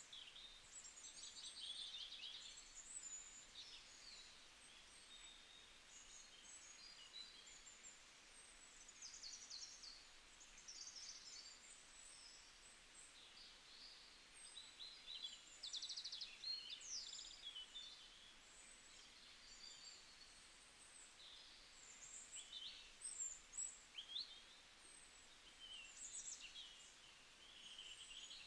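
Faint songbirds chirping and trilling: many short, high calls and quick trills, some gliding in pitch, over a faint steady hiss.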